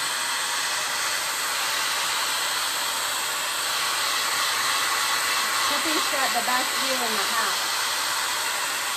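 Handheld hair dryer running steadily. Briefly, around six to seven seconds in, a few short gliding voice-like sounds rise over it.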